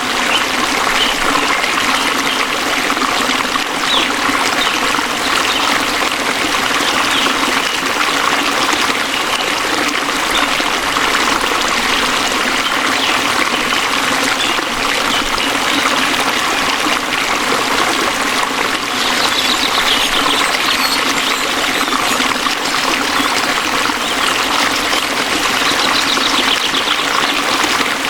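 Waterfall, with water falling and running steadily over rocks.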